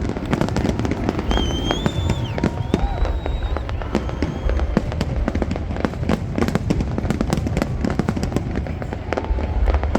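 Aerial fireworks going off in rapid succession: dense crackling and popping over deep rumbling booms, with a couple of high whistles about one and three seconds in.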